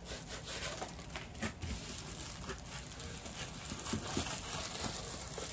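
Light rustling and crinkling as a diamond painting kit's packaging is handled, with scattered small taps and clicks.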